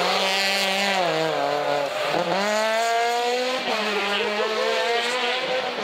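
Citroën C2 rally car's four-cylinder petrol engine: the revs drop as it slows for a bend about a second in, then climb hard as it accelerates away, with a brief break at a gear change partway through.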